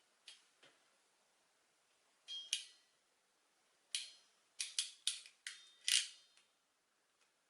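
Hand crimping tool clicking and snapping as small wire connectors are worked in its jaws: about ten short, sharp clicks in irregular groups, the loudest near the end.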